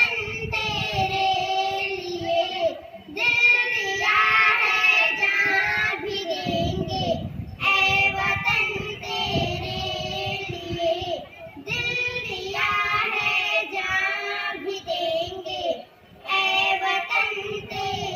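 Young girls singing a Hindi patriotic song into a microphone, in phrases of a few seconds with short breaks between them.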